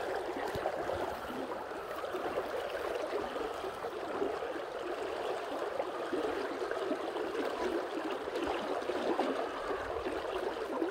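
Kenai River water flowing steadily around a drifting boat: an even, rushing and gurgling noise with no single event standing out.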